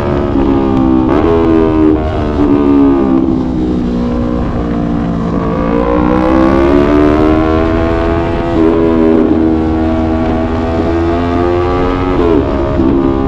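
Yamaha YZF-R3's parallel-twin engine under way, its revs rising and falling with the throttle, with a quick rise and drop in pitch near the end.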